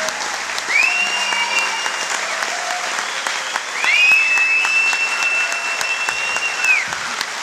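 Concert audience applauding, with high piercing whistles: a short one about a second in and a long one of about three seconds starting about four seconds in.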